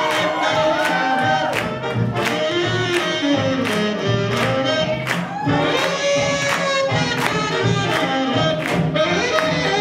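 Swing jazz band playing an upbeat tune for Lindy Hop, with a woman singing over a steady drum beat of about two strokes a second.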